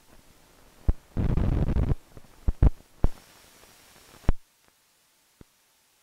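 Pops, clicks and a short crackling burst from the end of an old film's optical soundtrack, followed by a band of hiss that cuts off abruptly about four seconds in, leaving dead silence.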